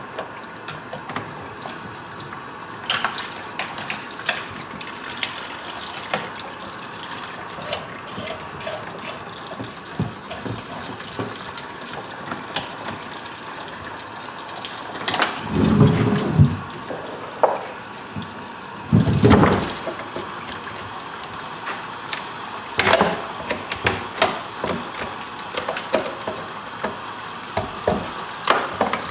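Water running from a garden hose into a plastic utility sink while a boiled skull is picked and scraped clean by hand and knife, with scattered clicks and knocks of bone. Two heavier thumps come about halfway through, a few seconds apart.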